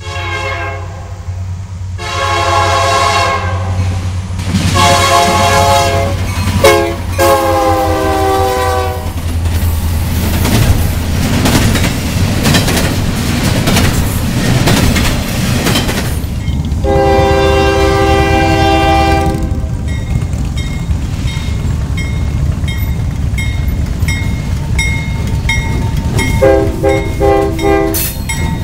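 A freight train passing close by, running with a steady rumble and wheels clattering over the rails. A diesel locomotive's air horn sounds repeated long blasts: four in the first nine seconds, another about two-thirds of the way in, and a short blast near the end.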